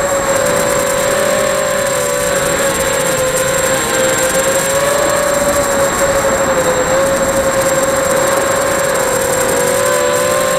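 FPV quadcopter's electric motors and propellers whining steadily, picked up by the camera on board. The pitch wavers slightly with the throttle, and a thin high steady tone sits above it.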